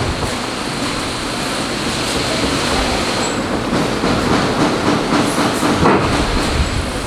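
Motor-driven wire brush wheel running steadily with a rough, rushing scrape as a ballet shoe on its last is pressed against it, with a few brief harder contacts.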